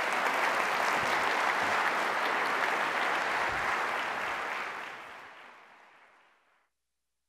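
Audience applauding steadily, then fading out over the last couple of seconds to silence.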